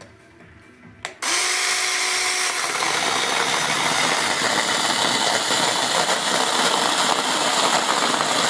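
Cordless electric chainsaw switched on after a click about a second in: the motor and chain spin up and then run steadily at full speed.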